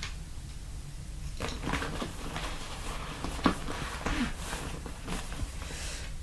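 Scattered rustling and light knocks of a person moving about and handling things, with one sharper knock about three and a half seconds in, over a steady low hum.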